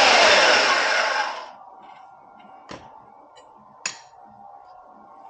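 Harbor Freight 10-amp deep-cut variable-speed portable band saw running, then switched off and winding down about a second and a half in. Two sharp clicks follow.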